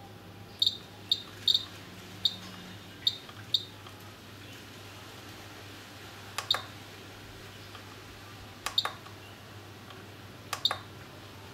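JR Propo XG7 radio transmitter giving short high key beeps as its menu is scrolled with the jog dial: six quick beeps, then three times a double click of the dial with a beep as menu items are selected.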